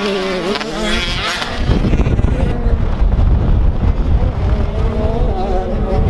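Motocross bike engine revving up and down under throttle, with strong wind buffeting the microphone; about two seconds in the wind rumble takes over and the engine drops back behind it.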